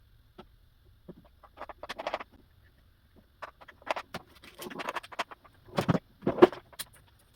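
Irregular metal clicks and short rattles of a chainsaw chain and bar being handled and worked onto the saw while it is fitted, the loudest clatters about six seconds in.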